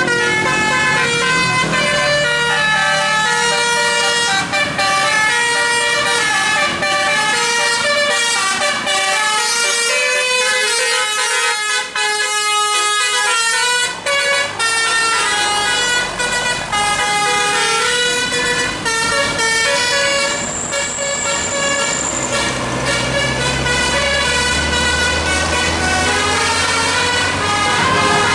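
Bus 'telolet' musical air horn playing a fast melody, several horn tones sounding together and stepping quickly from note to note. A bus engine's low rumble comes up under it in the last several seconds.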